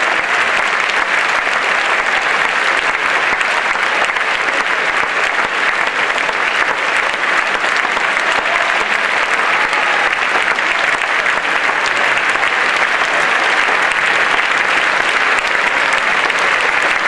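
Large audience applauding, a dense, steady clapping that keeps an even level throughout.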